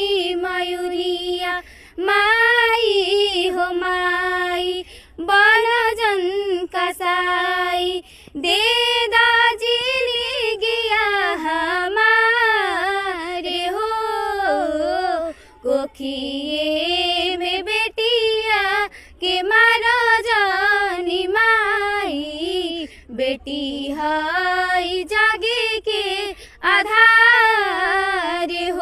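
Two young girls singing a song together without accompaniment, in long held, wavering notes, with short pauses for breath between phrases.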